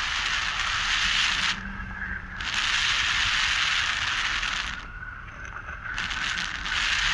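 Loud rushing of air over the camera microphone in flight under a tandem paraglider's banked wing, with a low rumble of buffeting. It eases off briefly twice, about two seconds in and again about five seconds in.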